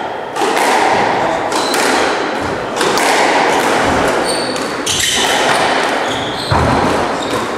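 Squash rally: the ball struck by rackets and hitting the court walls in a string of sharp impacts that echo around the court, with short high squeaks of shoes on the wooden floor.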